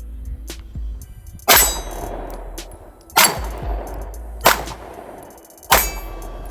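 Four shots from an HK P30 pistol, spaced about a second and a half apart, the first pulled in double action. Each shot is followed by a short ringing clang, typical of a hit on a steel target.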